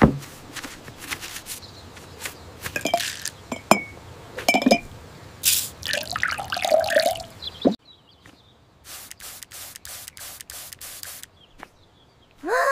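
Cartoon liquid sound effects: green liquid pouring and trickling, with drips and small clicks. About eight seconds in, this gives way to a run of short spray-bottle squirts, about three a second.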